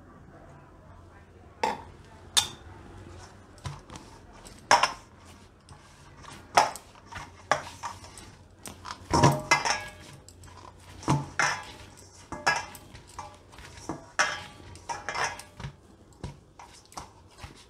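Hands kneading and turning an oiled ball of dough in a stainless steel bowl. The bowl gives irregular metallic knocks and clanks as the dough is pressed against it, starting about a second and a half in.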